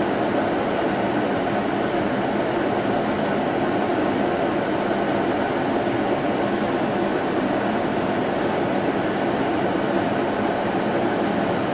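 A steady, unchanging droning noise with a faint hum in it, like a running fan or distant machinery.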